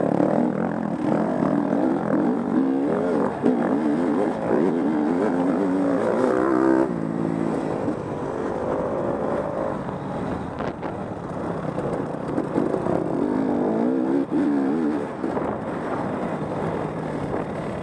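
Off-road dirt bike engine running hard under throttle, its pitch repeatedly rising and falling.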